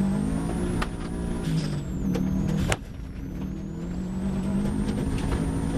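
Subaru Impreza GT rally car's turbocharged flat-four, heard from inside the cabin, pulling hard through the gears as the car accelerates on gravel. There is a sharp crack about two and a half seconds in, after which the engine note drops and then climbs again.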